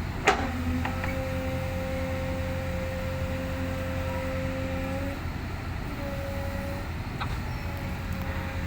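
Backhoe diesel engine running steadily under load while it digs, with a sharp knock just after the start. A steady whine sits over the engine for about five seconds, breaks off, then comes back briefly twice.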